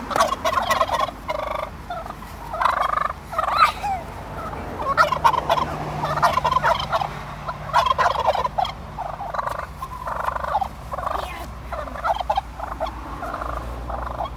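Wild turkey toms gobbling over and over in short bursts.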